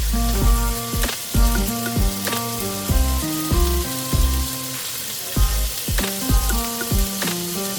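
Food sizzling as it fries in a pan, with occasional stirring, under background music with a soft steady beat.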